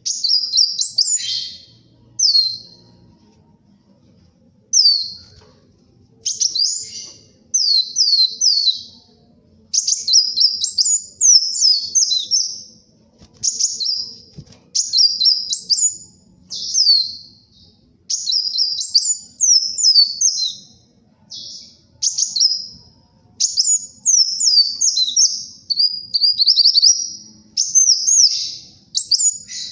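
Kolibri wulung sunbird singing in a fast, energetic 'gacor' manner: high-pitched, rapid twittering phrases of quick notes, each about half a second to two seconds long, repeated with short pauses.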